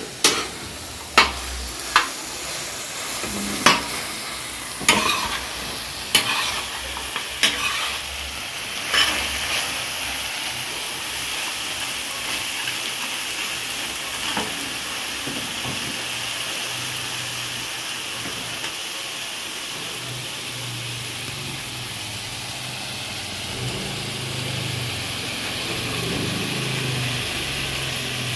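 Mutton chops sizzling in oil on a flat tawa griddle, with a metal spatula scraping and clanking against the pan about once a second for the first nine seconds, then steady sizzling. A low hum comes in about twenty seconds in.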